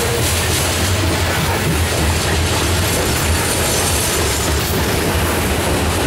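Covered hopper cars of a grain train rolling past close by: a steady, loud rumble and clatter of steel wheels on the rails.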